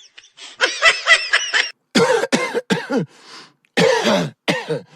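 A person coughing repeatedly, with the backing beat stopped: a quick run of short coughs about two seconds in, then a few more near the end, each dropping in pitch.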